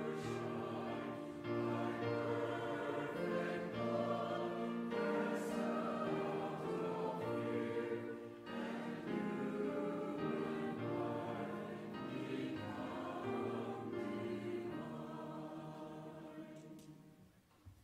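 A group of voices singing the closing lines of a hymn in harmony, ending on a held final chord that fades away near the end.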